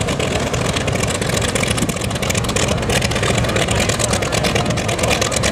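Hawker Sea Fury's large piston radial engine running at taxi power as the fighter rolls past close by: a loud, steady engine sound with a fast, even pulsing.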